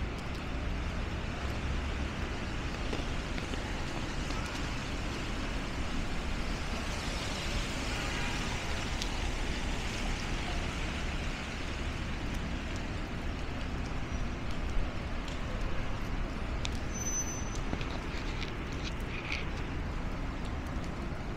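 Steady city street traffic noise: vehicles passing on a rain-wet avenue, with a brief high-pitched beep about two-thirds of the way through.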